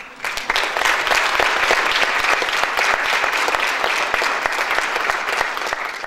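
Audience clapping, breaking out a moment in after a short silence and carrying on steadily.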